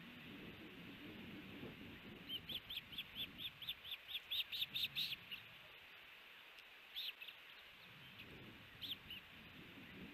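Osprey calling: a quick run of high, chirped whistles at about four or five a second, growing louder, then two short pairs of calls a few seconds apart.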